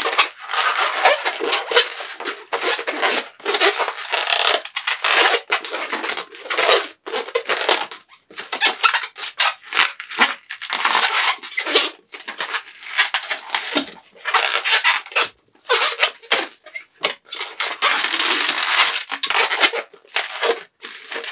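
Long latex modelling balloon being twisted and bent into a balloon dog: the rubber squeaks and rubs in irregular stretches with short pauses between twists.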